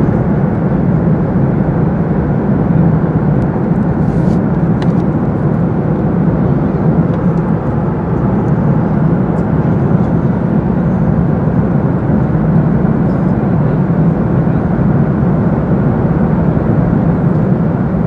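Steady cabin noise of a jet airliner in flight at cruise height, heard from inside the cabin: an even, deep rush of engine and airflow noise that does not change.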